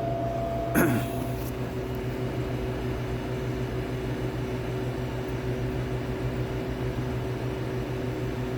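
Steady hum of refrigeration equipment. About a second in there is a click and a short falling tone, and a higher tone stops soon after.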